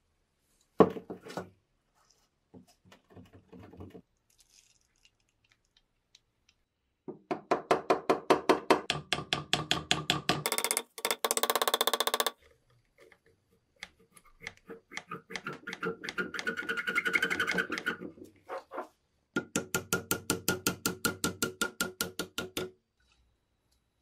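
A sharp knock about a second in, then repeated rapid metallic tapping and clicking on a large, heavily rusted windproof lighter as its insert is worked with a tool, in runs of about six or seven strokes a second, with a faster, denser run near the middle.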